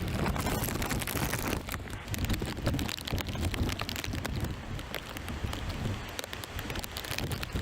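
Stormy wind gusting over the microphone with a fluctuating low rumble, mixed with the hiss and patter of rain.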